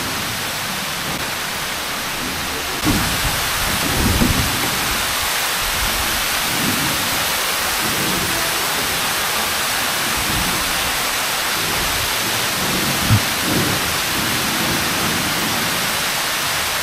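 Steady rushing hiss of falling water, a waterfall pouring into a gorge, with a few low thumps and rumbles about four seconds in and again near thirteen seconds.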